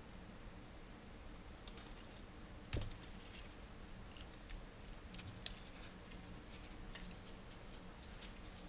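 Automatic wire stripper being worked on a thin wire: faint clicks and snaps of its jaws and spring, with one louder thump just under three seconds in and a run of small sharp clicks after it.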